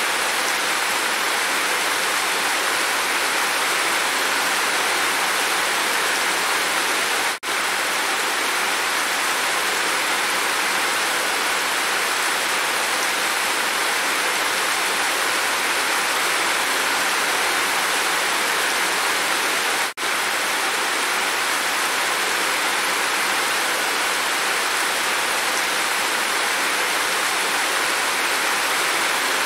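Steady heavy rain pouring off a roof's edge, a dense even hiss. It cuts out for a split second twice, about seven and twenty seconds in.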